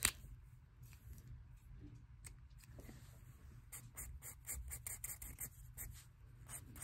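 Felt-tip marker scratching on sketchbook paper in quick short strokes, faint, about five a second from about four seconds in, after a single click near the start as the marker is handled.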